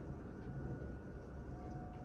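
Steady low rumble of a thunderstorm with the faint, steady tone of a distant tornado siren coming in about a second in.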